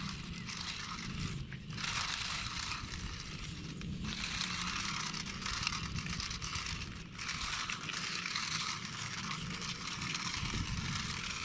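Toy remote-control racing car's small plastic wheels rolling and grinding over rough concrete. It makes a steady gritty noise that dips briefly three times.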